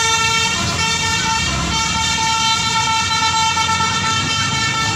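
Tour bus's telolet basuri musical horn holding one long note after a short different note at the start, over the low running of the bus's engine.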